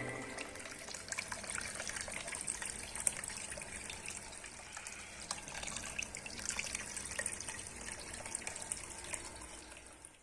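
Water trickling and splashing in a small homemade tabletop fountain made of plastic glasses, a steady faint patter that fades out near the end.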